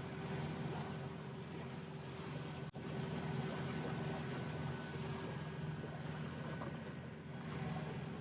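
Inboard diesel engine of a Wauquiez 47 sailing yacht running steadily under way, a low hum over a steady hiss. The sound cuts out for an instant about a third of the way in.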